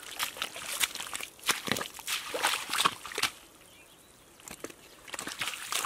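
Wet mud squelching and slapping in irregular short bursts as hands dig and feet shift in a muddy catfish hole, with a quieter pause about halfway through.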